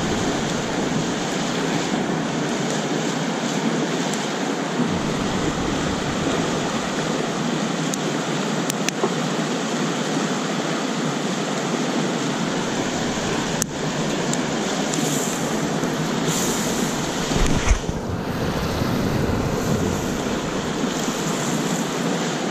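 Campfire burning: a steady rush with a few sharp pops. Wind rumbles on the microphone at times.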